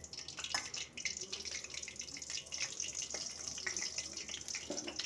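Brinjal pieces sizzling as they fry in hot mustard oil in a steel kadai: a steady hiss with many small crackles and pops.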